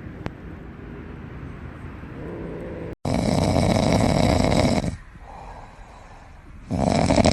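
Cat snoring loudly: two long rasping snores with a quieter breath between.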